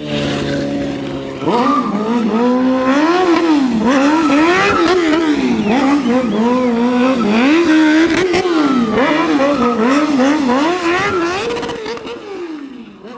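Sport motorcycle engine held steady for a moment, then revved hard over and over, its pitch swinging up and down many times in quick succession during a street stunt display. It fades near the end as the bike rides away.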